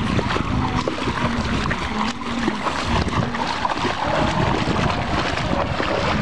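Feet splashing through ankle-deep seawater as people wade, a dense crackling wash, with wind on the microphone.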